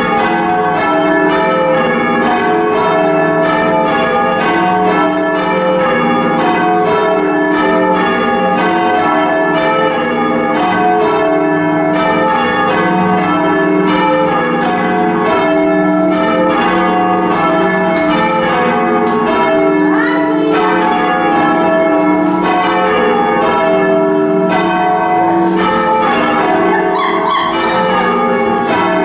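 Ring of four change-ringing church bells being rung full-circle, the strokes following one another evenly and overlapping as each bell hums on.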